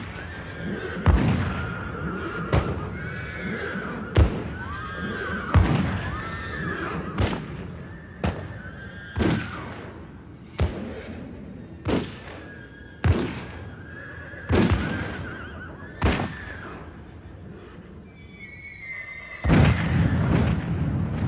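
Gunshots fired one after another, roughly one every second or so, with horses whinnying and neighing between the shots. A louder, rumbling noise comes in near the end.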